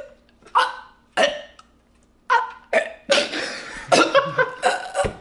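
A man's Gollum impression made in the throat: short throaty gulping noises, a few spaced apart and then coming thicker and faster, breaking into a cough.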